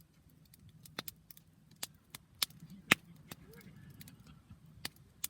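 Wood campfire crackling, with sharp irregular pops; the loudest comes about three seconds in.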